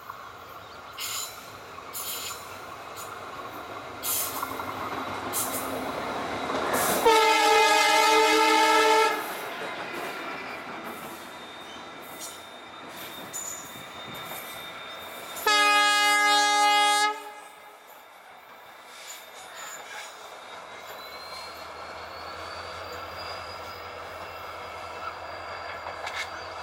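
EMD WDG-4 (GT46MAC) diesel locomotive's two-stroke V16 engine running, with two horn blasts, the first about two seconds long, the second about a second and a half. Scattered wheel clicks and rumble are heard between them. Near the end a faint whine slowly rising in pitch sets in over a low hum as the locomotive approaches.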